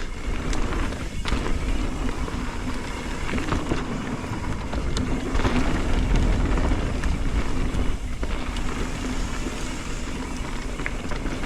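Mountain bike riding down a dirt trail: steady wind rush on the microphone and tyre noise, with a few sharp knocks and rattles from the bike over bumps.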